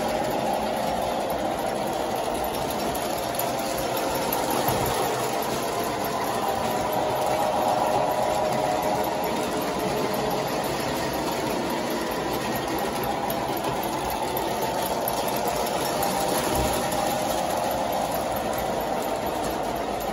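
Several O-gauge model trains running at once on three-rail track, a steady mix of wheels rolling and electric motors humming.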